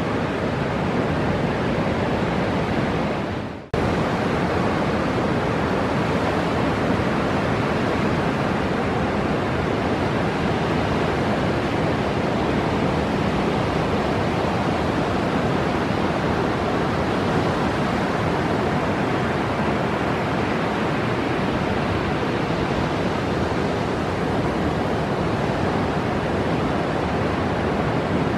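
Steady roar of ocean surf breaking on a beach. It fades out briefly about four seconds in and comes straight back.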